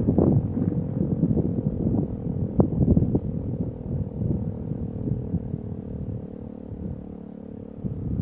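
E57 electromechanical siren sounding a steady test-alarm tone at one held pitch. Wind gusts buffet the microphone.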